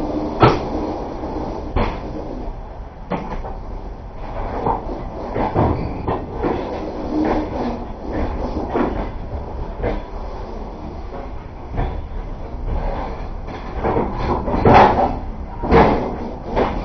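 Passenger train carriage rolling along the track, heard from inside the car: a steady rumble with irregular clanks and knocks, the loudest coming near the end.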